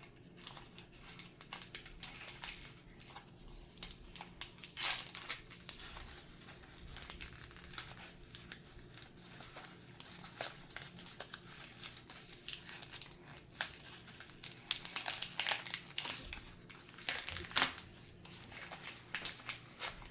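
Toy packaging crinkling and rustling as it is handled and opened, with bursts of tearing and louder crackling about five seconds in and again near the end.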